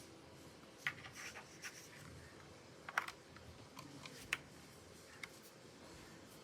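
Scattered keystrokes on a custom mechanical keyboard with lubed Outemu Red linear switches, pudding keycaps and a tape mod: a handful of separate presses and short runs of two or three, the sharpest about three seconds in.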